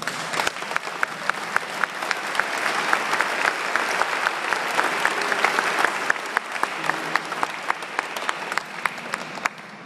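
Crowd applauding, which starts suddenly and dies down near the end. One close clapper's sharp claps, at about four a second, stand out above the rest.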